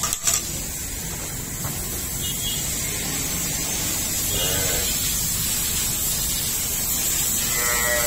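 Livestock bleating: two short calls, one about four and a half seconds in and one at the end, over a steady high hiss, with a single knock at the very start.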